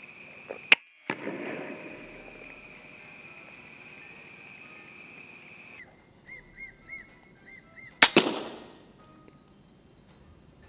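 Two air rifle shots firing .177 slugs at rats: a sharp crack just under a second in, and a louder one about eight seconds in with a brief ring-off.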